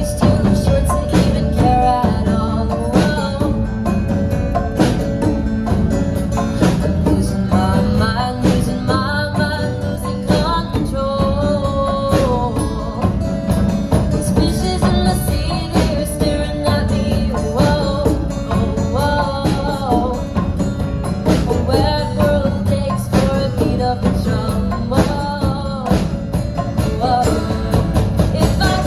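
Music: a woman singing a cover of an indie-rock song over a full backing of drums, tambourine and guitar.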